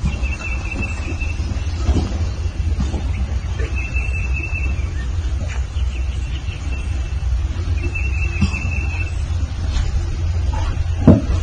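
Calico kitten purring steadily as a deep, low rumble. A short high-pitched tone comes four times, about every four seconds.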